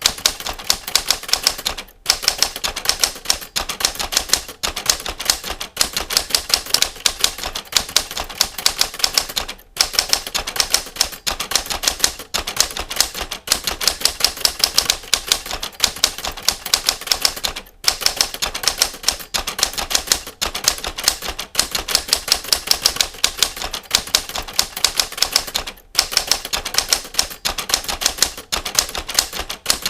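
Typewriter keys struck in a fast, steady run of sharp clacks, several a second, as a fingering drill is typed. Brief pauses come about every eight seconds.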